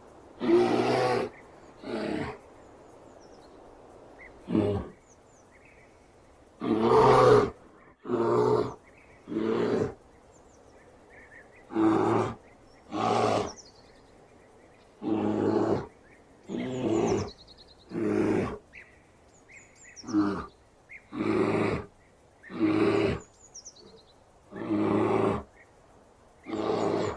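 Bear giving a long series of short roaring growls, each about a second long and coming every second or two. Faint bird chirps sound in the background.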